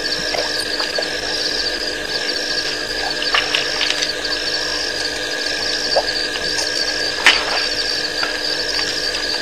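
Night chorus of calling animals: a high-pitched trill repeated about once a second over a steady hum, with a few light clicks and one sharper knock near the end.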